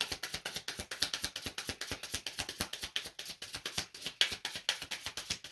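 A tarot deck being shuffled by hand: a quick, irregular run of card clicks and taps.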